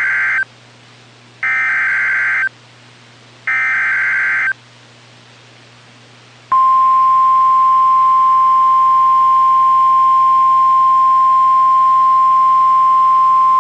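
NOAA Weather Radio Emergency Alert System signal: three roughly one-second screeching SAME digital header bursts about a second apart, then, about six and a half seconds in, the steady 1050 Hz warning alarm tone begins and holds. This header and tone announce a new warning, here a severe thunderstorm warning.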